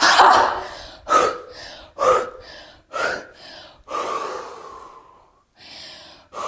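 A woman's loud, forceful 'Ha!' exhalation with a chopping swing of the arms, followed by three short sharp out-breaths about a second apart and then a longer, heavy exhale: vigorous breathing from a woodchopper-style breathing exercise.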